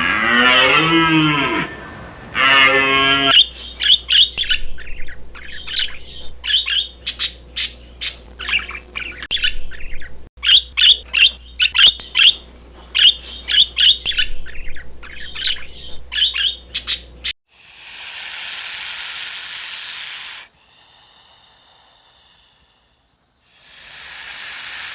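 A low, bending call like a cow's moo, then a bird chirping in quick runs of short high notes for about fourteen seconds. About seventeen seconds in, the chirping gives way to a loud hiss-like noise that stops and starts twice.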